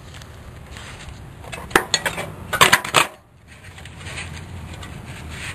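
Metal clinking and rattling, with a quick run of sharp clinks about two to three seconds in, as metal roofing pieces are handled.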